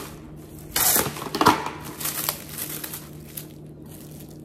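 Plastic cling wrap crinkling and rustling as a sheet is pulled from the roll, torn off and smoothed down by hand. The loudest rustles come about a second in and again half a second later, with softer crinkling after.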